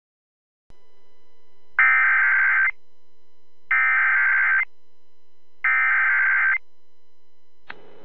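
Emergency Alert System SAME header: after a brief silence, three bursts of warbling digital data tones, each just under a second long and about two seconds apart, over a faint steady hum. The bursts encode an incoming tornado warning.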